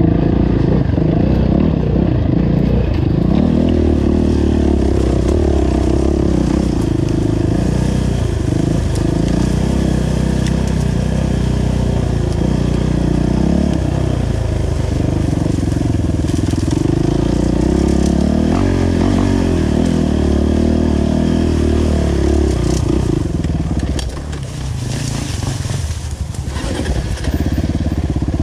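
Dirt bike engine running on a trail ride, its revs rising and falling with the throttle. About three-quarters of the way through it drops back to quieter, lower running for a few seconds before picking up again.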